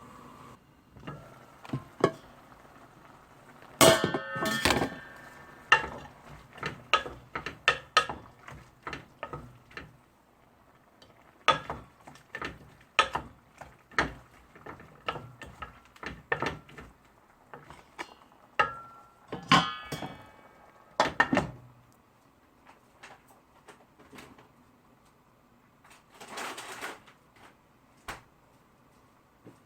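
Kitchen dishes, pots and utensils clattering: irregular clinks and knocks of metal and crockery, with louder ringing clangs about 4 seconds and 20 seconds in. The clatter thins out after about 22 seconds, and a short rushing noise comes near the end.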